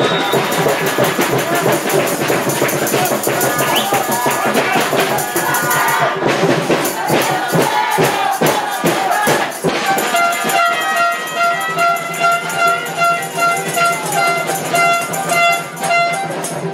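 Music with fast shaken and struck percussion, joined about ten seconds in by held brass-like notes repeated in short pulses.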